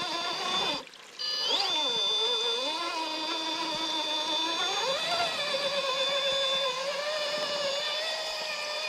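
Electric motor and gearbox whine of a radio-controlled rock crawler, rising and falling in pitch with the throttle as it climbs over creek rocks, with a steady high-pitched whine above it. The motor cuts out briefly about a second in, then picks up again.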